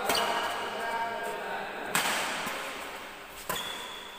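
Badminton rackets hitting a shuttlecock during a rally, three sharp strikes about two seconds and then a second and a half apart, each ringing briefly in the hall.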